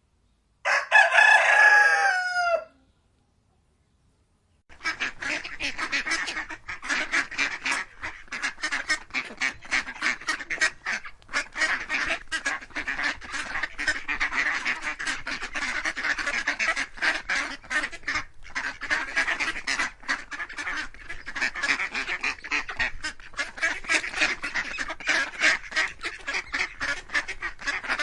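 A rooster crows once near the start, the call falling in pitch at its end. After a short silence, a flock of domestic waterfowl calls without pause, a dense chatter of many overlapping quacks and honks.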